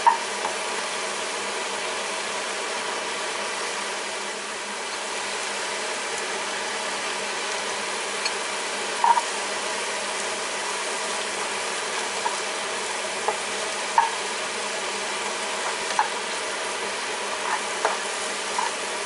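Sliced mushrooms and onion sizzling steadily in a nonstick frying pan, with a few short taps and scrapes scattered through it as a plastic spatula stirs them.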